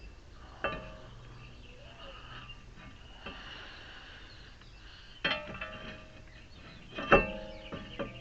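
Metal parts clinking: three sharp, ringing metallic clinks, the last the loudest.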